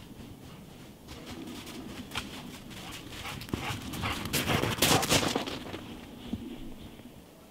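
Black Labrador retriever running through snow close by: a quick run of crunching footfalls that builds, is loudest about four to five seconds in as the dog passes, and then fades.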